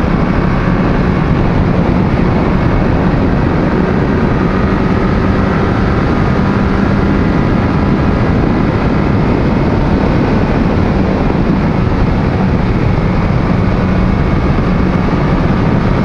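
Yamaha FZ1 sportbike's inline-four engine running at a steady cruising speed, mixed with heavy wind and road noise on the microphone. There is no revving or shifting, just an even, loud rush.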